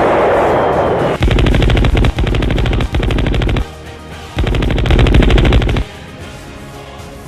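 Automatic machine-gun fire in two long rapid bursts, after a loud rumbling noise like the tail of an explosion.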